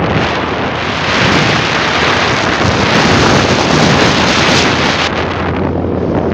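Wind buffeting the microphone of a phone carried on a vehicle moving fast along a road, over a steady low drone from the vehicle. The wind is loudest from about a second in until about five seconds.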